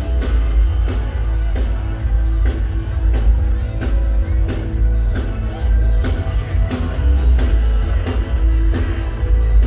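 Live reggae band playing loudly through a PA: heavy bass line, drums and electric guitar.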